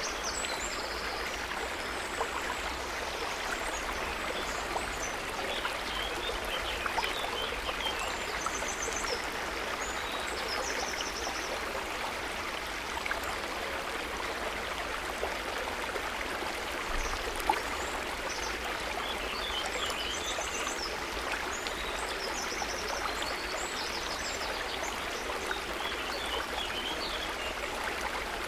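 River water running steadily, a constant rushing flow. Short high chirps sound over it now and then.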